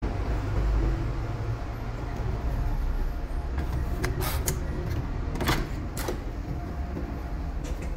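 A steady low rumble with a few sharp clicks at about four to six seconds in, as a door's metal lever handle is worked and the door opens.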